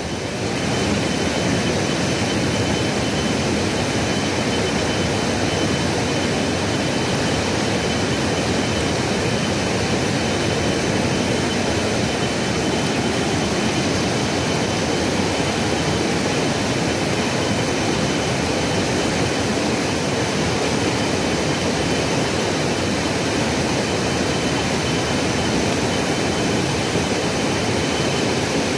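Steady rushing roar of a swollen mountain river in flood, unbroken and even throughout.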